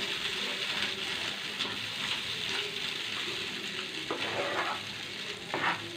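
Rice batter being stirred in a pan over hot oil and tempering on a low flame, with a steady sizzle.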